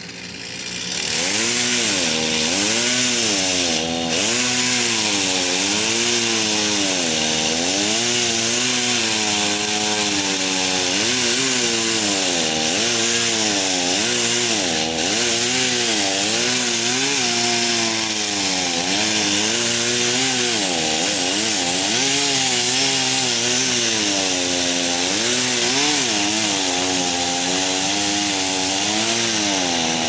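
Gas chainsaw revving up about a second in and cutting white pine, its engine pitch repeatedly dipping and recovering as the chain loads in the wood.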